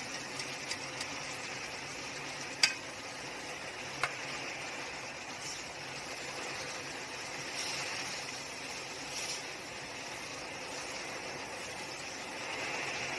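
Mullet pieces sizzling steadily in hot oil with fried garlic in a pan, searing before water is added for the braise. Two sharp clicks a second and a half apart come a few seconds in.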